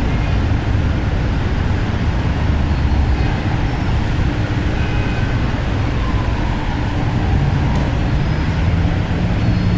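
Busy city street traffic ambience: a steady, dense rumble of engines and tyres from passing vehicles. A low steady hum joins about seven and a half seconds in.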